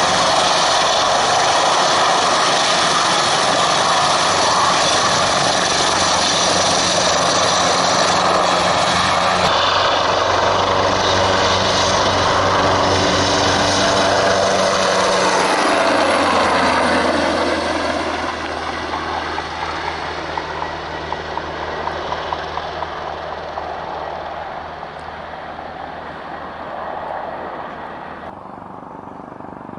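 Airbus H225M Super Cougar helicopter's twin turboshaft engines and rotor lifting off and climbing away. Loud and steady for about the first half, with sweeping tones as it rises, then fading steadily as it departs.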